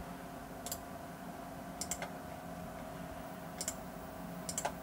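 Computer mouse clicking four times, a second or so apart, most clicks a quick press-and-release pair, over a faint steady electrical hum.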